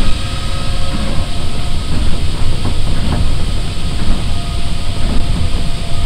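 Steady running noise heard inside an Osaka Monorail straddle-beam monorail car under way between stations: a low rumble from its rubber tyres on the concrete track beam, with a faint steady whine over it.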